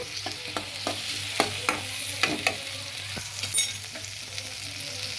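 Chopped onions and tomatoes sizzling in hot oil in a metal kadhai, with a spatula scraping and tapping against the pan in a run of quick strokes through the first few seconds. The sizzle carries on steadily underneath.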